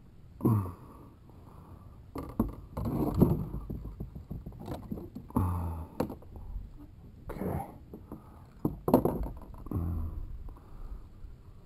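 Irregular knocks, scrapes and rattles of a fishing rod, reel and gear being handled against a plastic kayak, about eight separate bursts with the loudest a third and three-quarters of the way in.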